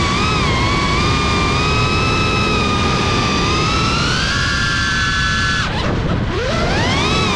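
Cinelog35 cinewhoop FPV drone's brushless motors and ducted propellers whining, the pitch shifting with throttle. About six seconds in the whine drops sharply and then climbs back up as the throttle is cut and reapplied.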